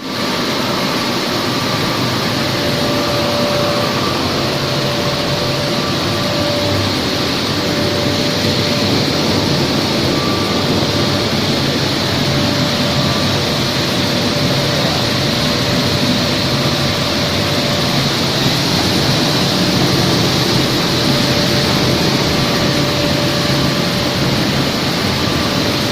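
Maize milling plant machinery running steadily, a continuous loud mechanical noise with a faint steady whine through it.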